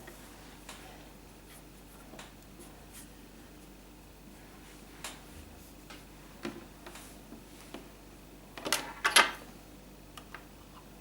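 Handling noises from modelling Play-Doh clay: scattered light taps and clicks, with a louder cluster of clatter about nine seconds in, over a faint steady low hum.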